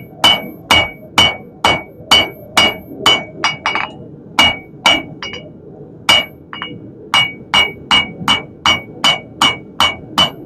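Hand hammer striking hot steel on an anvil in a steady rhythm of about two and a half blows a second, each blow leaving a short ring from the anvil, with a brief pause a little past the middle. The blows are drawing out a taper on the bar for a scroll end.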